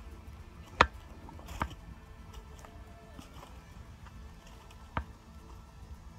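Three sharp clicks or snaps over a low rumble: the loudest a little under a second in, a weaker one just after, and a third about five seconds in.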